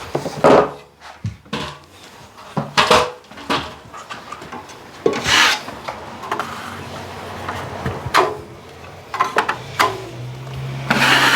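Drywall blade scraping over a still-doughy patch of hot-mud compound, in short rasping strokes every second or two. Near the end comes a louder, longer rasp with a low hum under it.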